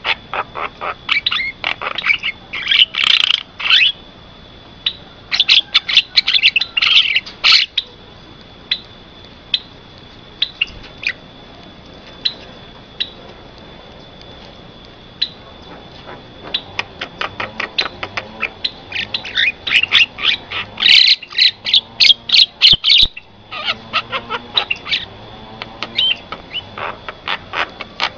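Javan myna calling: bursts of rapid, harsh chattering and clicking notes, with dense runs in the first few seconds and a long burst about two-thirds of the way through, separated by scattered single notes.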